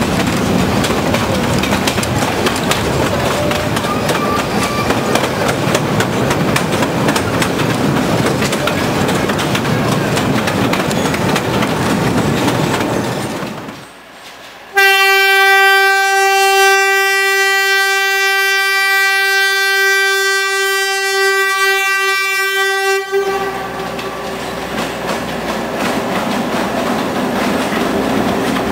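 Narrow-gauge train running through the forest, wheels clattering and rumbling on the rails. About halfway through, the diesel locomotive's horn sounds one long, steady, single-note blast of about eight seconds that stops sharply, then the locomotive's engine runs as the train approaches.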